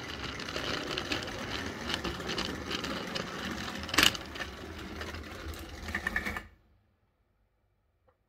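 16mm-scale model train running: a Roundhouse 0-6-0 electric loco and Peter Binnie tipper wagons clattering along the track, heard from a camera riding on one of the wagons. There is a sharp click about four seconds in, and the rattle stops suddenly about six and a half seconds in as the train comes to a halt.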